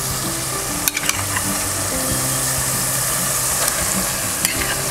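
Curry paste and coconut milk sizzling in a frying pan, fried until the oil has split out and bubbles up, with raw chicken tenderloin pieces going in and being stirred with a wooden spatula. There is a steady hiss of frying and a few light knocks about a second in and near the end.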